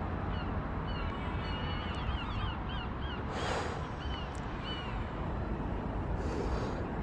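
Birds calling in a quick series of short high chirps over a steady low city rumble, with one harsher, noisier call about three and a half seconds in.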